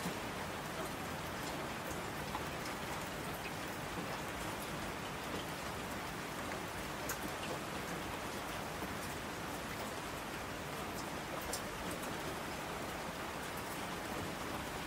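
Steady rain falling, with scattered single drops ticking sharply over the hiss.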